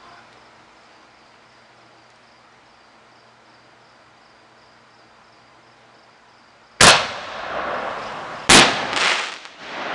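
Crickets chirping faintly, then about seven seconds in two loud firework bangs a second and a half apart, each trailing off in a long fading rumble.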